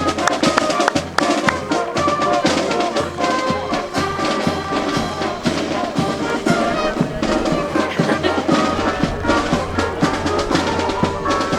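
Brass band playing, with drums keeping a steady beat.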